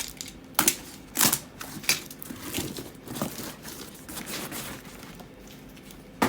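A parcel being unwrapped by hand: irregular crinkling and crumpling of the packaging, with a few louder sharp rips, about half a second, a second and two seconds in, and again near the end.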